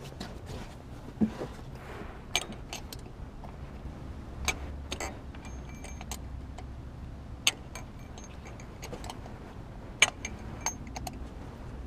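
Metal hand tools clinking and clicking as they are handled over an engine: scattered sharp clicks and brief metallic rings, the sharpest about ten seconds in.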